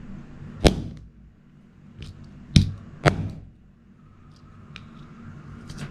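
Hammer blows on a plastic fitness band lying on a wooden block: one sharp strike, then two more in quick succession about two and a half seconds in, each with a short thud. The band's hard case is holding and not yet breaking.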